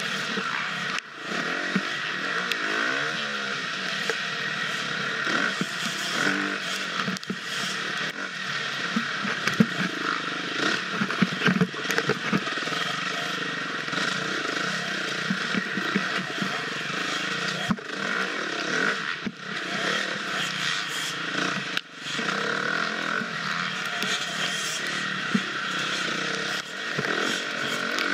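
Husqvarna FX 350 dirt bike's single-cylinder four-stroke engine running and revving up and down as it is ridden over rough off-road ground, with scattered clatter and knocks from the bike and terrain.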